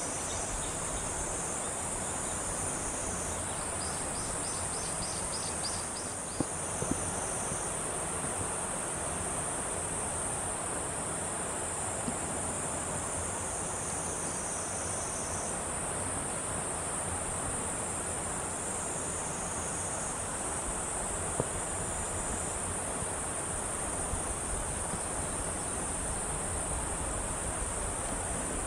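Insects buzzing steadily at a high pitch, with a second, slightly lower insect call that starts and stops. About four seconds in there is a short run of quick pulses. Underneath is a steady rushing background noise.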